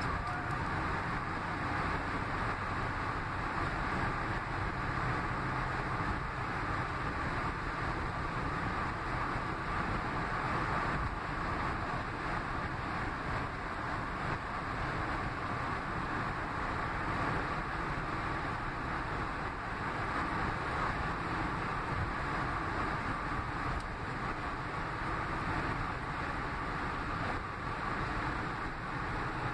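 Steady road noise inside a car cabin at highway speed: tyre rumble and wind, with no change throughout.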